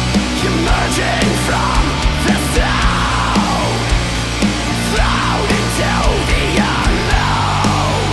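Black metal music: distorted guitars over a steady, regular drumbeat.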